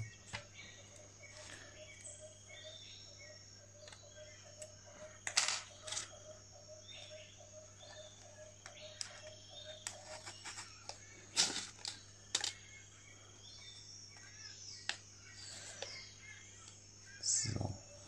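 Quiet handling sounds as insect pins are pushed into a polystyrene spreading board to fix a cicada's wings: a few sharp clicks and soft scattered ticks over a low steady hum.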